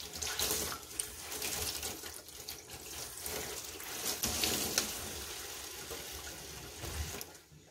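Water running from a tap into a sink, with scattered light knocks. It stops suddenly just before the end.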